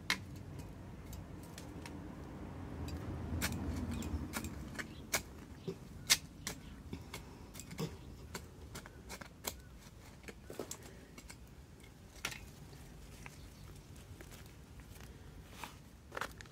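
Small hand trowel digging and scraping in loose garden soil, giving irregular sharp scrapes and clicks as a planting hole is dug. A low rumble swells about two to four seconds in.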